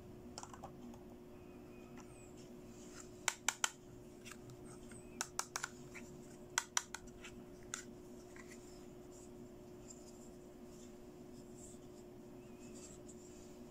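Pink plastic toy makeup compact being handled and clicked open by hand: sharp plastic clicks and taps in quick groups of two or three between about three and eight seconds in, then softer rubbing and handling, over a faint steady hum.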